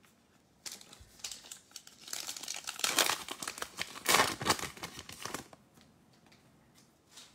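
Foil wrapper of a 2020 Panini Mosaic football card pack crinkling in the hands and being torn open. The tearing is loudest in the middle. A few faint crinkles follow near the end.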